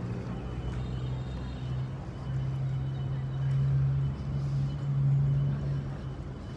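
A steady low engine-like hum over faint background noise. It grows louder about two seconds in and eases off near the end.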